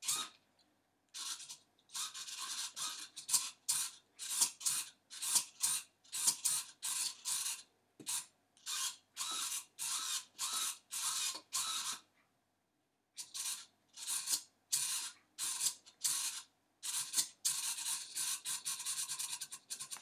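Small hobby servos of a pan/tilt head whirring in short bursts, roughly two a second, as a joystick drives them, with pauses about a second in and again around twelve seconds in.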